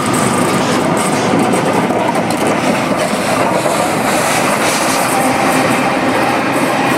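Steam locomotive 3642 and its train running along the track, a steady heavy rumble with wheels clattering over the rail joints.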